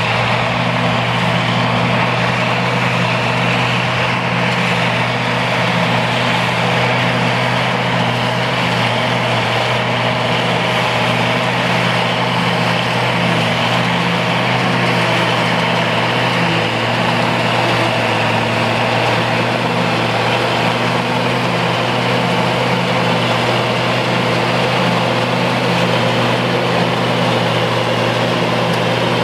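International 5088 tractor's turbocharged six-cylinder diesel running steadily while pulling a New Holland FP230 forage harvester that is chopping soybean straw and blowing it into the wagon. A constant low engine note sits under an even rushing noise from the harvester.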